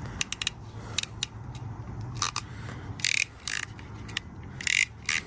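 Ratcheting wire crimping tool being worked, its ratchet pawl clicking in short quick bursts that sound like a cricket.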